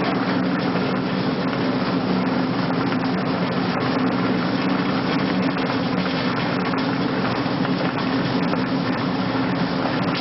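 Pellet mill running steadily, pressing material into pellets: an even grinding mechanical noise over a low motor hum.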